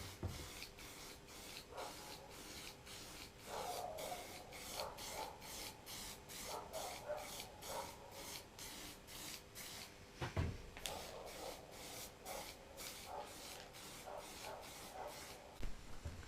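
Rhythmic hand rubbing or scraping strokes, about two to three a second, as a vice is worked over by hand. There is a single low knock about ten seconds in.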